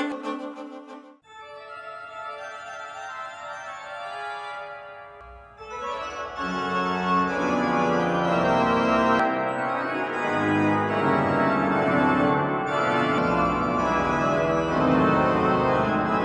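Music played back on a portable Bluetooth speaker for a sound test: one piece ends about a second in, then quiet, sustained keyboard chords play, with bass and a fuller arrangement coming in about six seconds in.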